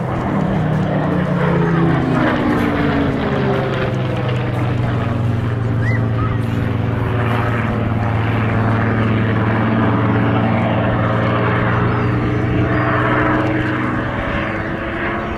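Piston engines of a warbird formation, two Supermarine Spitfires with a Bristol Blenheim, flying past overhead. Their steady drone drops in pitch over the first couple of seconds as they pass, then holds steady.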